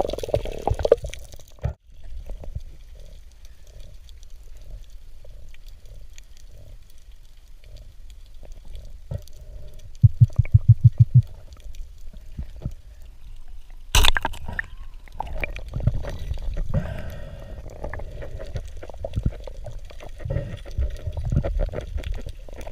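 Muffled underwater rumble and water noise picked up by a submerged camera. About ten seconds in comes a quick run of low thumps, and some four seconds later a single sharp crack: a band-powered speargun fired at a jurel.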